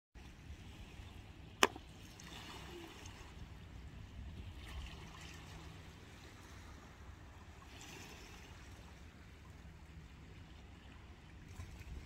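Small waves lapping softly on a rock and shingle shore, with soft washes coming and going over a steady low rumble. A single sharp click about one and a half seconds in.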